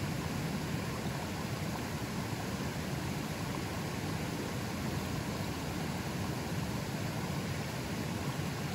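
A river flowing fairly strongly: a steady, unbroken rush of water, heaviest in the low range.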